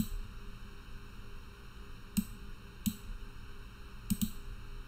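Computer mouse clicking and scrolling through a dropdown menu: a few faint, sharp clicks spaced irregularly, with a quick double click a little after four seconds in.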